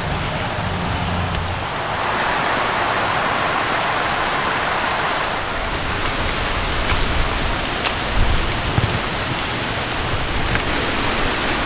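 Wind through dry autumn leaves in the trees, with leaves falling and pattering down: a steady hiss that sounds like rain but is not, swelling for a few seconds about two seconds in, with a few light ticks later on.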